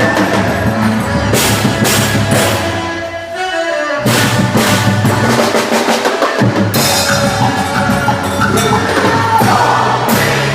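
Music with a strong drum beat. About three seconds in it thins out briefly to a falling sweep, and the full band with drums comes back in at about four seconds.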